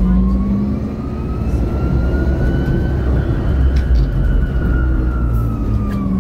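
Electric drive of a 2017 MAN Lion's City Hybrid city bus whining over a deep engine and road rumble. The whine rises slowly in pitch as the bus gathers speed, peaks about halfway through, then falls again as it slows.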